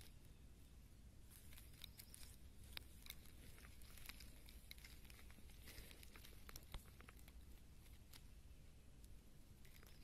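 Near silence: a low steady hum with faint scattered crackles and soft rustles from about one second in to about seven seconds in.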